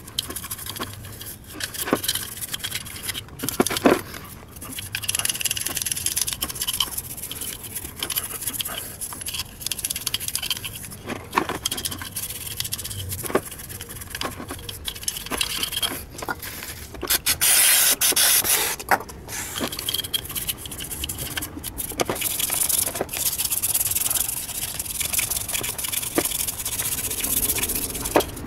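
Plastic pick tool scraping dirt and deposits from the bore and throttle plate of a VW Golf 4 1.6 throttle body during cleaning: an uneven, continuous scratching with small clicks, louder for about a second past the middle.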